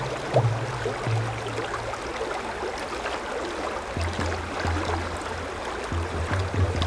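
A brook running, an even rush of water with many small splashes, over low held music notes that drop out for a couple of seconds in the middle.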